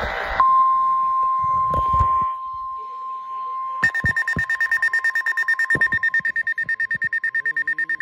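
NOAA Weather Radio's steady high warning alert tone, with a rapid, evenly pulsing beep joining about four seconds in: the receiver's own alarm, sounding for a flash flood warning.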